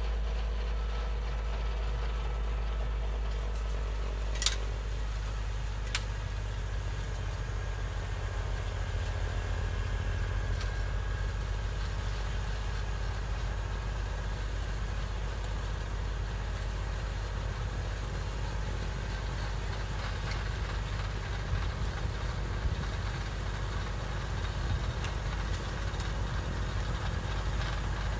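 Kubota L2501 compact tractor's three-cylinder diesel engine running steadily under load as its rear snowblower throws snow, a continuous drone. Two sharp clicks sound about four and a half and six seconds in.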